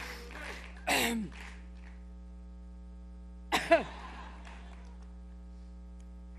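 A woman coughing hard into a microphone: one harsh cough about a second in, then a quick double cough about two and a half seconds later. A steady electrical mains hum from the PA runs underneath.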